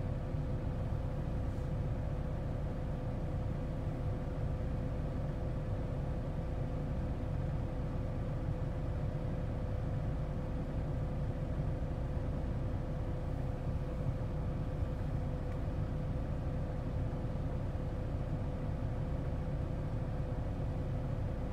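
Car engine idling, heard from inside the car's cabin: a steady low rumble with a faint steady hum.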